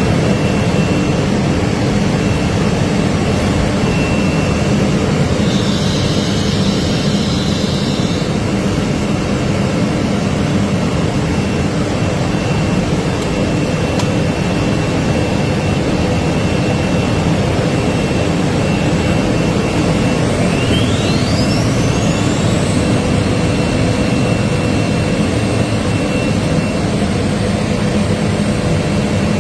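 Tetra 4-axis CNC router running while side drilling: a loud, steady machine noise with a thin, high steady whine, and a short rising whine about two-thirds of the way through.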